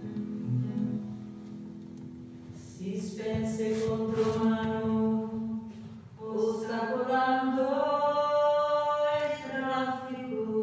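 Song with acoustic guitar and singing. Low guitar notes play alone at first, and a singing voice comes in about three seconds in with long held notes in two phrases.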